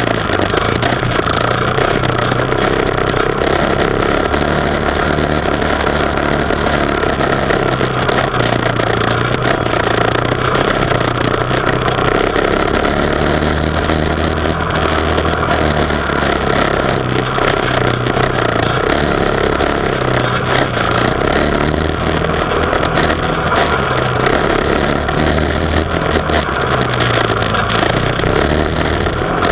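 ATV engine running under way on a dirt track, its note rising and falling every few seconds with the throttle, over a steady rushing noise.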